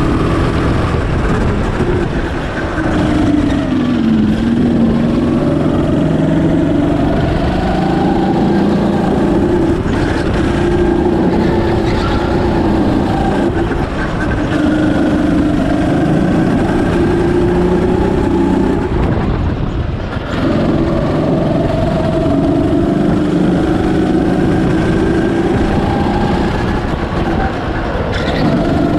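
Birel N35 go-kart engine running at speed on a lap, its pitch climbing and dropping again and again as the kart accelerates and slows.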